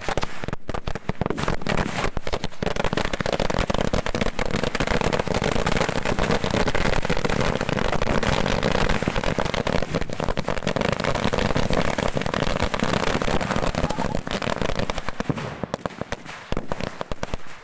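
A long string of firecrackers laid on the ground going off in a rapid, continuous volley of bangs, thinning out and stopping near the end.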